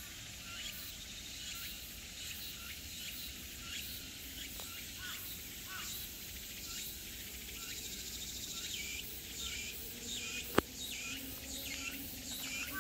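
Woodland ambience: small birds chirping in short, repeated calls, some dropping in pitch, over a steady high drone of insects. A single sharp click comes about ten seconds in, the loudest sound.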